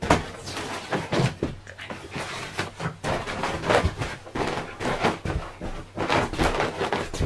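Feet stepping onto and shifting on an inflated ripstop-nylon camping air mat: irregular dull thumps with rustling of the mat's fabric.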